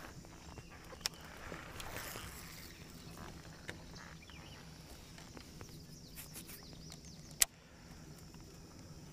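Baitcasting rod and reel handled through a cast: a soft whoosh about two seconds in, a few light clicks, then one sharp click about seven and a half seconds in, the loudest sound, as reeling begins, over a faint outdoor background.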